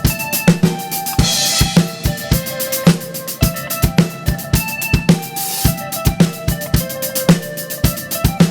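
Live worship band playing an instrumental passage: a drum kit keeps a steady kick-and-snare beat under sustained keyboard and bass notes, with a cymbal swell about a second in and again just past halfway.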